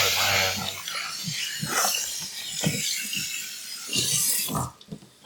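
A dog making low vocal noises, amid scattered scraping and knocking sounds.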